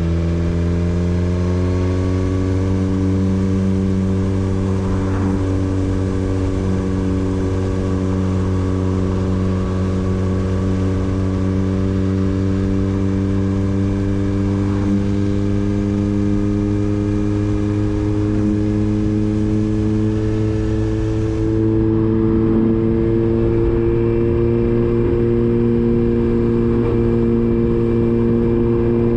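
Motorcycle engine running steadily under way, its note rising slowly and evenly.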